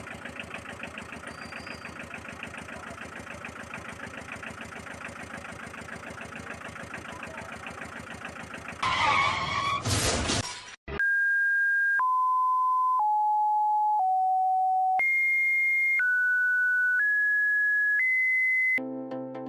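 Engine sound effect with a fast, even pulse, like an idling truck, for about nine seconds. It is cut off by a loud, noisy crash-like burst, then a string of eight one-second electronic beeps, each at a different pitch.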